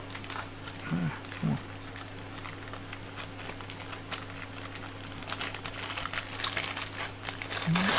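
Plastic bag crinkling and a cable rustling as hands unwrap and handle the power cable, with quick rustles and small clicks getting busier over the last three seconds.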